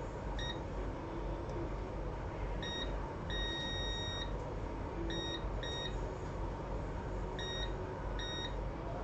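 Electronic beeps from bench electronics equipment: seven high beeps at irregular intervals, all short except one held for about a second, over a steady background hum.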